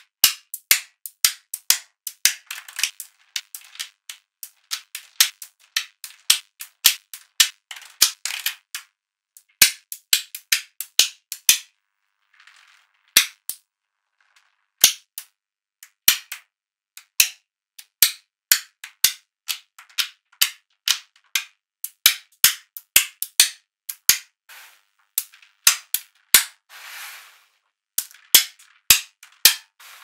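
Small magnetic balls snapping together with sharp clicks, one after another at an irregular pace of about one to three a second, with a few pauses. Near the end there is a short rattling rush as a cluster of balls clacks together.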